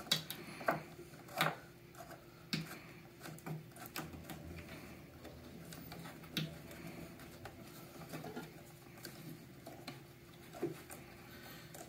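Faint, scattered clicks and small knocks of hands turning a pressure sensor into its threaded port in a DAB EsyBox booster pump's housing and handling its cable, over a faint steady hum.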